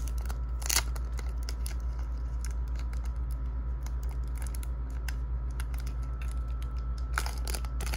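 Clear plastic wrapper of a trading-card pack being peeled and crinkled open by hand, with light clicks of cards being handled. A sharp crackle comes under a second in and another near the end, over a steady low hum.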